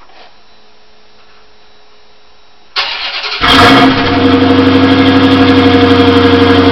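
Dodge Challenger R/T's 5.7-litre HEMI V8 being started: the starter cranks briefly nearly three seconds in, the engine catches with a loud flare of revs, then settles into a steady idle through the exhaust.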